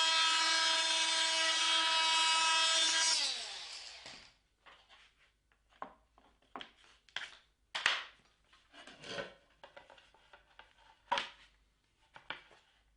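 Bosch GOP 250 CE oscillating multitool with a segment blade cutting into a wooden door frame: a steady buzzing whine that winds down, falling in pitch, about three seconds in as the tool is switched off. This is followed by a few scattered light knocks and rubs.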